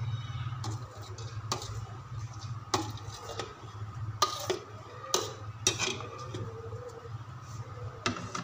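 A metal slotted spoon scraping and knocking against a metal colander and an aluminium pot as boiled rice is spooned out: about half a dozen scattered clinks, the sharpest near the middle, over a steady low hum.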